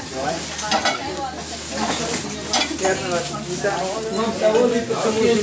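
Background chatter of several people with short clinks of spoons and dishes.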